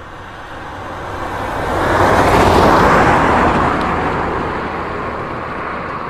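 Convoy of Mercedes-Benz Unimog military trucks driving past: a rush of engine and road noise that swells to its loudest two to three seconds in, then eases off.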